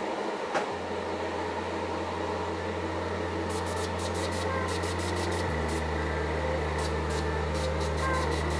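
Steady airy whir of a small airbrush spray booth's ventilation fan. A low hum under it steps to a deeper pitch about five seconds in, and faint quick ticking comes in over the second half.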